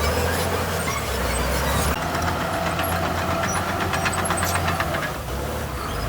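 Heavy diesel earthmoving machinery running with a steady deep engine drone, joined by fast metallic clicking from about two seconds in until near five seconds.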